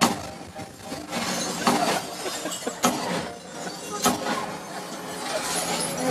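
Action movie soundtrack playing loud through a JTR home-theater speaker system: a sudden crash at the start, then a dense wash of effects with sharp hits about every second.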